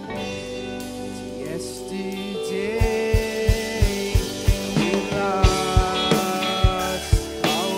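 Live rock band playing an instrumental passage: sustained guitar and other pitched notes, then a kick drum comes in about three seconds in, thumping steadily about three times a second.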